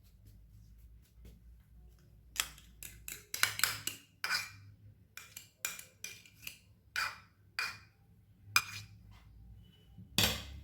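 Kitchenware clattering and scraping: a dozen or so short, irregular strokes beginning about two seconds in, with a loud one near the end.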